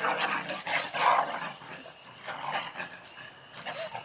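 A Great Dane and a dachshund in rough play, giving short barks and yips. The sounds are loudest and most frequent in the first second or so, with a couple more later.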